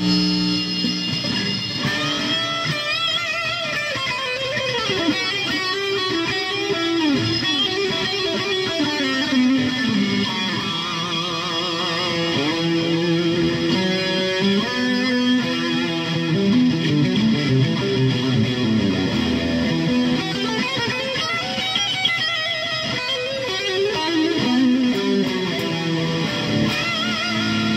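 Electric guitar played through a Boss Katana 100 MkII amp on its lead channel, boosted by a distortion pedal model and run with a delay: distorted single-note lead lines with vibrato and string bends, played without a break.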